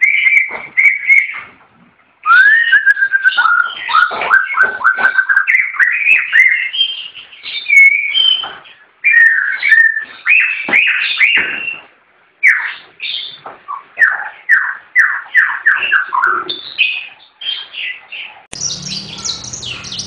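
A caged songbird singing: rapid runs of short, downward-sweeping whistled notes in varied phrases, separated by brief pauses.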